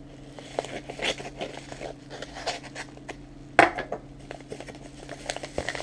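A knife blade cutting and scraping along a padded paper mailer envelope, with crinkling paper, a run of small scratchy strokes and clicks. About three and a half seconds in comes one sharp knock, the knife being set down on the wooden table.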